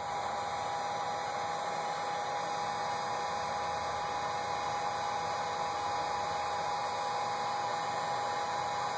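Electric heat gun running steadily: a constant rush of blown air with a steady whine, held on heat-shrink tubing over a soldered wire splice.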